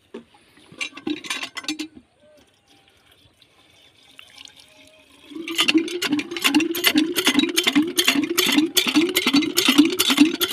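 Cast-iron hand pump being primed: water poured into its head slops and gurgles with each stroke of the handle. There is a short splash about a second in. From about five seconds in comes a steady rhythm of about two and a half strokes a second.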